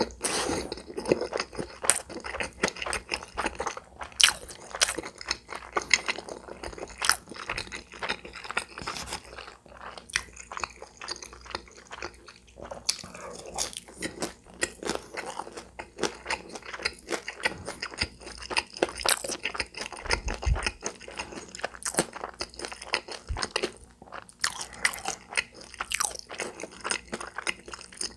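Close-miked chewing of food with many irregular, crisp crunches.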